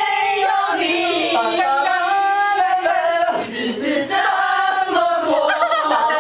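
A group of women singing together as a choir, in a sung-and-spoken chant with held notes, with a brief break about halfway through.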